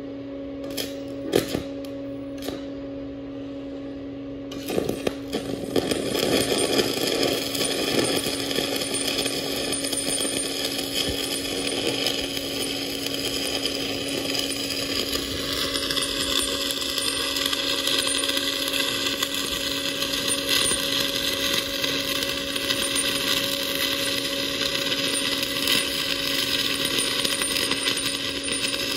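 Shielded metal arc welding with a 1/8-inch Lincoln 5P 6010 electrode. A few sharp ticks come first; about four seconds in, the arc catches and crackles steadily as the fillet weld is run. A steady hum sits underneath.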